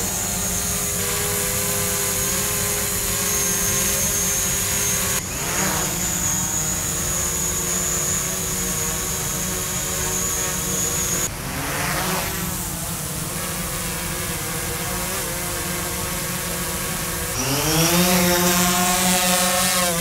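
DJI quadcopters hovering one after another, a Mavic Pro, a Mavic Pro on low-noise propellers, then a Phantom 4 Pro: a steady propeller buzz and whine with several held tones. The sound changes suddenly twice where one drone gives way to the next, and near the end the Phantom's whine rises in pitch, then holds steady.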